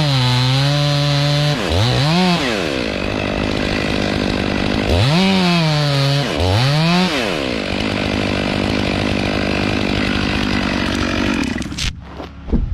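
Chainsaw cutting wood: the engine note swoops up and back down twice near the start and twice again about five to seven seconds in, as the saw is revved and loaded in the cut. It cuts off near the end.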